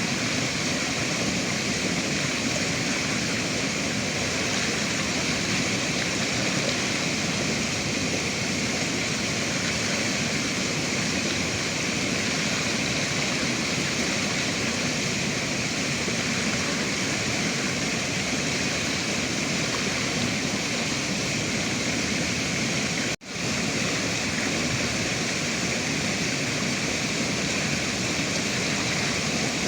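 River water rushing steadily and evenly, with a dense full-range splash and hiss. The sound drops out for an instant about 23 seconds in, then resumes unchanged.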